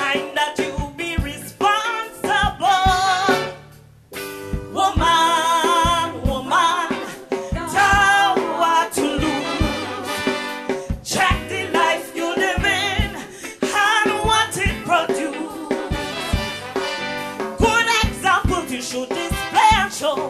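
Calypso music: a singer with a live band over a steady beat. The music drops away briefly about four seconds in, then comes back.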